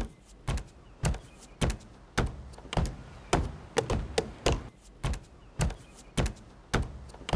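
Sneakers stomping on ship's deck planking in a steady beat, a sharp thud about twice a second, with a faint low hum underneath.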